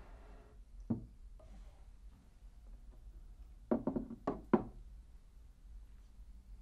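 A wooden desk drawer pulled open with a single knock, then a quick run of about five wooden knocks and clunks as objects in the drawer are handled and a hammer is taken out.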